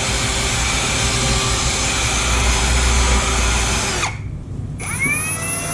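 Power drill with a wire wheel brush scouring a steel truck frame, a harsh grinding hiss over the motor's whine; about four seconds in it stops and winds down, then the drill spins back up and runs free off the metal for a couple of seconds.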